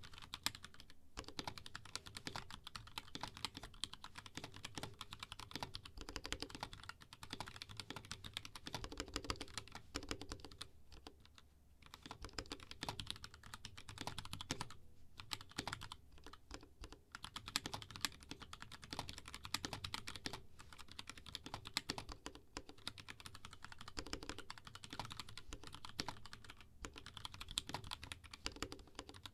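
Continuous fast typing on a custom mechanical keyboard with unlubed KS3 Black linear switches in an aluminium plate and BM60 case: a rapid run of keystroke clacks, broken by brief pauses a few times.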